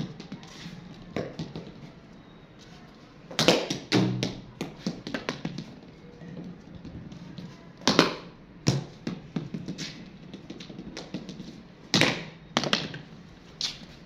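Wooden cricket bat blocking a hard cricket ball in front-foot defence: three sharp knocks about four seconds apart, each followed by a few smaller knocks as the ball bounces and rolls on the concrete floor.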